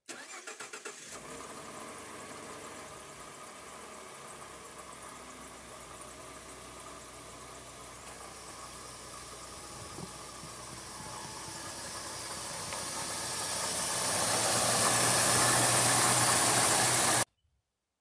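2013 Ford F-150's 3.5 EcoBoost twin-turbo V6 cranking for about a second, catching and idling, getting steadily louder over the last few seconds before the sound cuts off suddenly.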